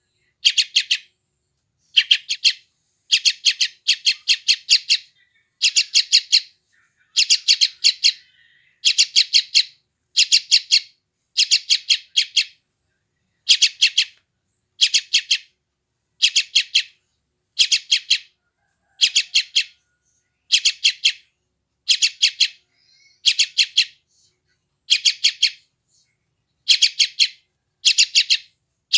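Young yellow-vented bulbul (trucukan) giving hungry begging calls: short bursts of four to six rapid, harsh chirps, repeated about every one and a half to two seconds.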